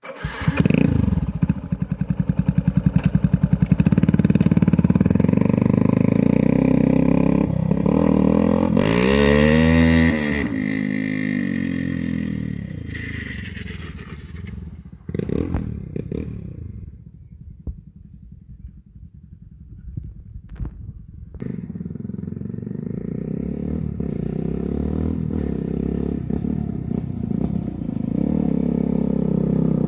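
Yamaha YZF-R motorcycle with a Malossi big-bore kit and Leovince full exhaust, its engine running loud. It revs up and back down quickly about nine seconds in, runs quieter for a stretch in the middle, then runs steadily louder again.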